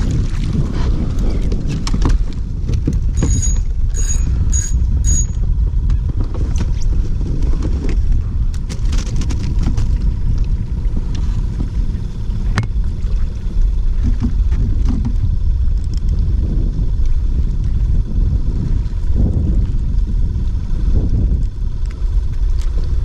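Wind buffeting the microphone, a steady low rumble, with light water noise around the kayak. About three seconds in come four short high beeps, roughly half a second apart.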